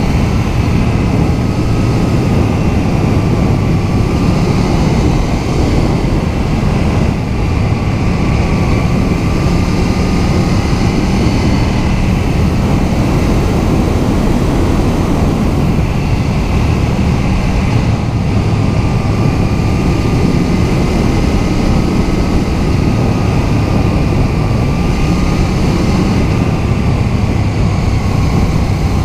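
KTM 790 Duke's 799 cc parallel-twin engine pulling steadily in fourth gear at road speed, its pitch rising and falling gently with the throttle, over a steady rush of wind and road noise.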